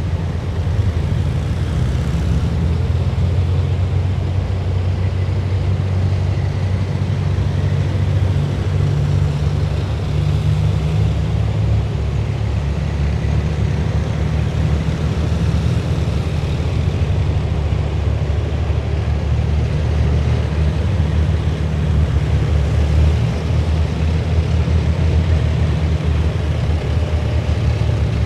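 A column of heavy military vehicles driving past, their diesel engines making a deep, steady rumble that continues without a break.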